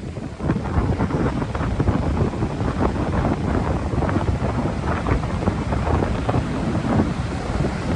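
Strong wind buffeting the microphone in irregular gusts, loud and rushing, getting louder about half a second in.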